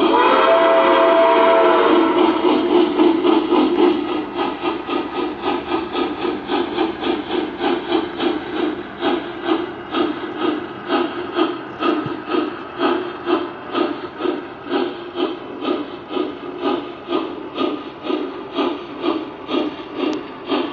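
Three-rail model of a Norfolk & Western streamlined K2a 4-8-2 steam locomotive, its sound system blowing a steam whistle for about two seconds. Then comes a steady rhythmic steam chuff, about two to three chuffs a second, as the engine runs along the track.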